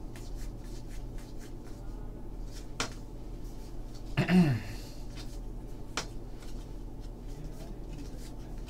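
Stack of paper trading cards being flipped and slid through the hands, a run of soft quick flicks with two sharper clicks. About four seconds in, a brief low voice sound from the handler that falls in pitch, like a short "hmm".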